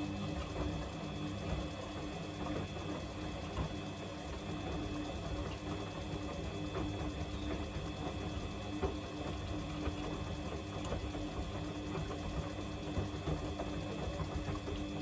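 Samsung washing machine running with a steady motor hum and a constant mid-pitched tone, with some faint rattling over it.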